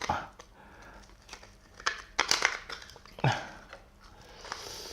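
Close-miked mukbang eating sounds from spicy steamed scallops: wet chewing and crackly clicks in several short bursts, with a soft hiss near the end.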